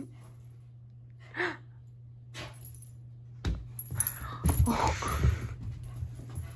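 A steady low hum. About three and a half seconds in comes a thump, then about two seconds of scuffling and thudding as a dog runs and scrambles across carpet.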